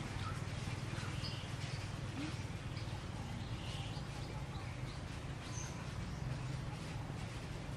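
Faint, short high-pitched animal chirps, scattered every second or so, over a steady low hum.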